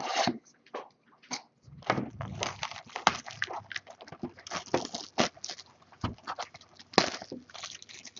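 Plastic wrapping crinkling and tearing in quick, irregular rustles and snaps as a sealed box of trading cards is opened.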